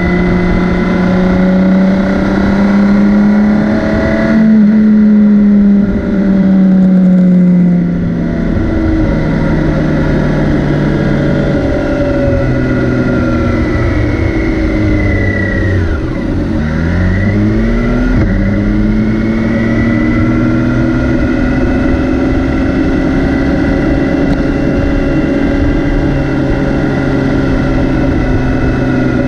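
BMW K 1600 B's 1.6-litre inline-six engine running under way. The revs rise and drop back a couple of times in the first eight seconds, sink and climb again around the middle, then hold steady.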